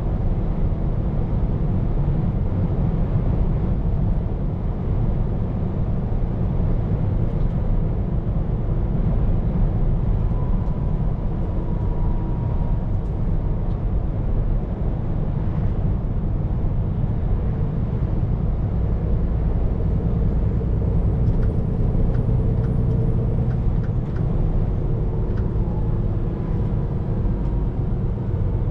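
Scania P410 truck running at road speed, heard from inside the cab: a steady low engine and road rumble.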